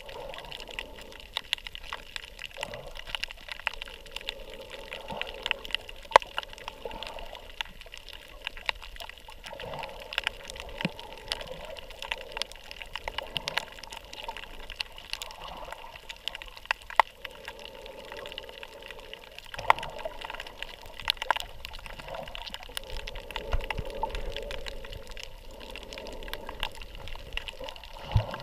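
Underwater sound picked up by a submerged camera: muffled, swelling and fading water noise with many scattered sharp clicks.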